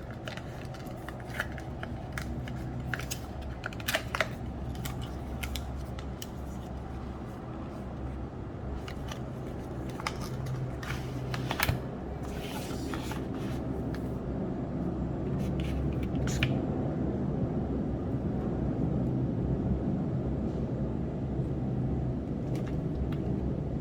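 Hands handling a small electronic gadget and its packaging: scattered clicks and taps, and a brief rustle about halfway through, over a steady low hum.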